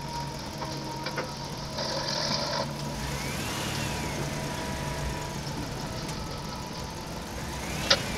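Engine running steadily, with a short hiss about two seconds in and a sharp click near the end.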